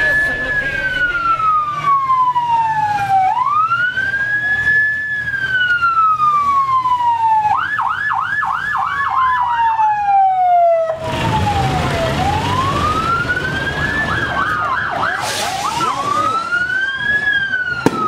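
An electronic siren wailing: its tone repeatedly rises quickly, then falls slowly, about every three to four seconds. It is twice broken by a few seconds of fast warbling.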